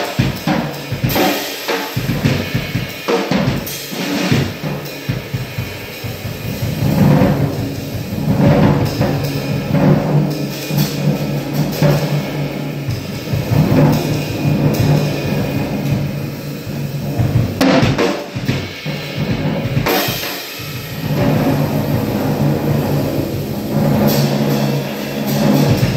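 Music with a prominent drum kit: bass drum, snare and cymbals over sustained low tones.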